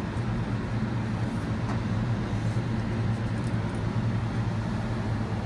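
Steady hum and rushing air of a biosafety cabinet's blower, with a few faint clicks from a plastic vial being handled.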